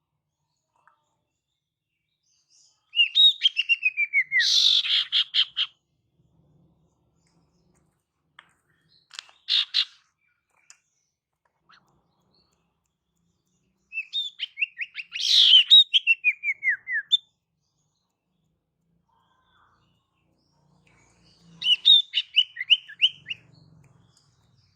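Female common iora (sirtu, cipoh) calling: four separate bursts of quick, chattering notes a few seconds apart. In the longer bursts the notes step down in pitch. These are the female calls used as a lure for male birds.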